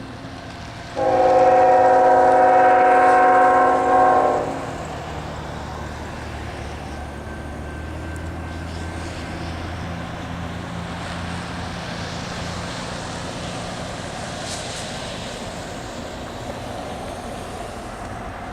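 A diesel locomotive's air horn sounds one long chord of several notes about a second in, dipping briefly before it stops at around four and a half seconds. It comes from the lead locomotive of a CSX freight led by an ET44AH and an SD40. After the horn, the locomotives' diesel engines keep up a steady low rumble.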